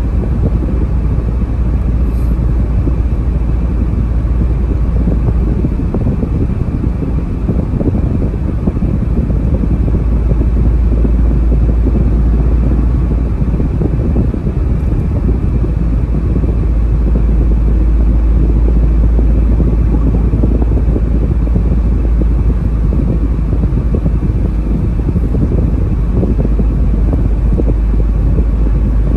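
Steady low rumble of a car cruising at highway speed, heard from inside the cabin: road and engine noise.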